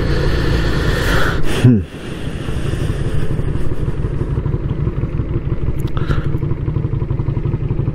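Suzuki Intruder VL 125's small V-twin engine as the motorcycle slows. Its pitch falls sharply about a second and a half in as the revs drop, then it runs steadily at low revs while the bike rolls slowly.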